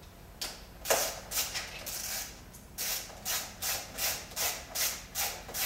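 Hand ratchet wrench clicking in short repeated strokes as the water pump housing nuts on a Mercury outboard gear case are run down, a few uneven strokes at first, then a steady run of about three a second from about halfway in.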